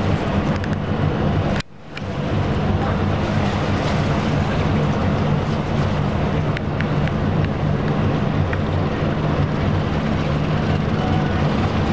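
Boat engine running steadily with a low hum, under a wash of water and wind noise; the sound cuts out for a moment just under two seconds in.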